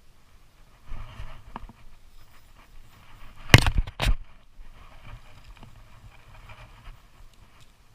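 Rustling, then two loud knocks about half a second apart.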